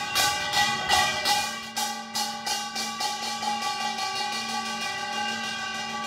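Korean folk pungmul music: fast, even beats of percussion, about three or four a second, that fade out after about two seconds, over a long held wind-instrument note that goes on steadily.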